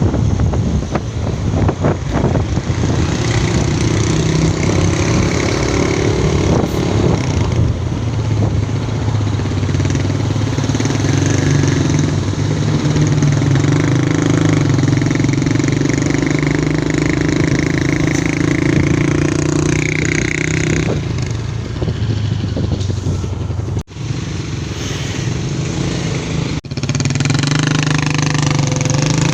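Road traffic: a close vehicle engine running steadily among queued cars. The sound cuts out briefly twice near the end.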